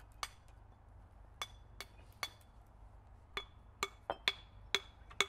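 Cotswold limestone walling stones being knocked and set in a dry stone wall: about ten sharp clinks, each with a short ring, spaced irregularly and coming quicker in the second half.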